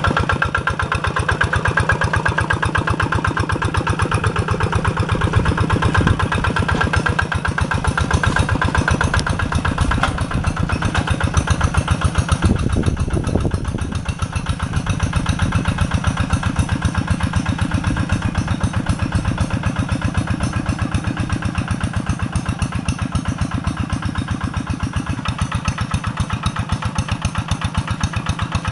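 Single-cylinder Kubota RD85 diesel on a Quick two-wheel walking tractor, chugging steadily under load while pulling a plow through mud, with rapid, even firing pulses. It is loudest in the first half, then a little quieter after about halfway.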